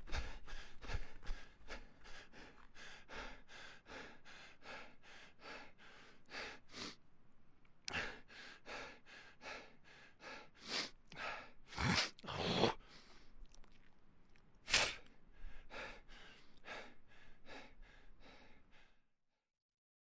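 A person panting hard from running: quick, even breaths at about two a second. A few louder, sharper gasps come near the middle, and the breathing stops shortly before the end.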